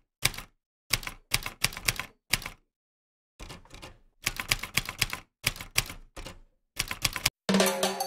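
Typewriter key-strike sound effect for type-on text: irregular runs of sharp clacks separated by short pauses, with a longer pause about three seconds in. Music comes in near the end.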